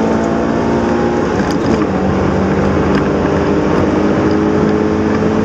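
Subaru BRZ's flat-four engine and road noise heard from inside the car. The engine note eases down, breaks briefly about a second and a half in, then holds steady and rises slightly near the end.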